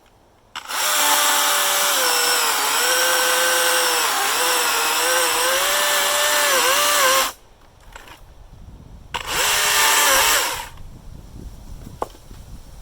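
Husqvarna 120i battery chainsaw cutting through oak: a steady electric-motor whine whose pitch sags and wavers as the chain loads in the wood, lasting about six and a half seconds. After a short stop comes a second burst of about a second and a half.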